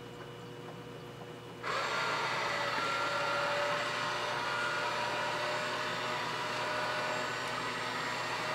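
Clack WS1CI control valve's drive motor switching on about two seconds in and running with a steady whine, moving the internal piston to advance the valve into its regeneration cycle after the regen button is held.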